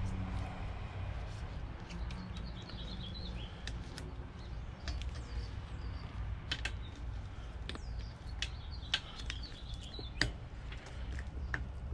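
Scattered light clicks and taps of exhaust hardware being handled as a mounting strap is fitted, with birds chirping in the background over a low steady hum.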